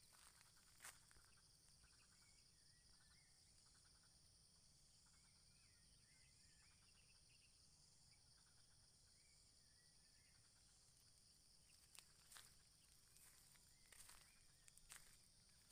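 Near silence: faint rural outdoor ambience with a steady high insect drone, a few faint bird chirps in the middle, and several soft clicks near the end.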